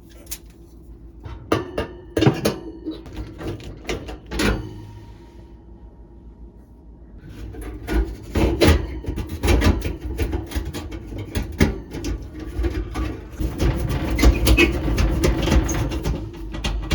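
Handling noise of hard objects: a few sharp knocks and clicks, then, from about seven seconds in, several seconds of dense, irregular clattering and rubbing over a faint steady hum.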